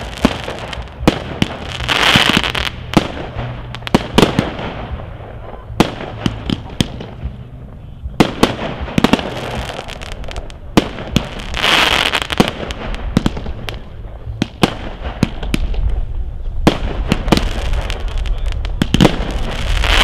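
Fireworks display: a rapid, irregular run of sharp bangs from shells being launched and bursting overhead. Denser, noisier spells come about 2, 9, 12 and 20 seconds in.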